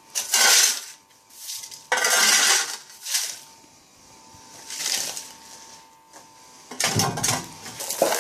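Several short bursts of scraping and metallic clattering, with a longer, heavier burst near the end: foam insulation and metal scrap from a dismantled water heater being gathered up during cleanup.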